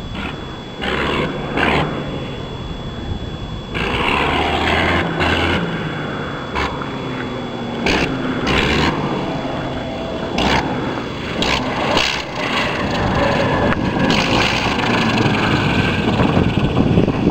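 Fokker Dr.I triplane's 80 hp Le Rhône rotary engine running unevenly through the approach and landing, its power surging and cutting in and out in irregular bursts. This is a new engine not making full power; the pilot couldn't find a sweet spot where it would run well.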